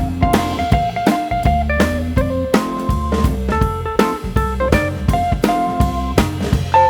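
Background music: relaxed instrumental with a guitar melody over a steady drum-kit beat and bass.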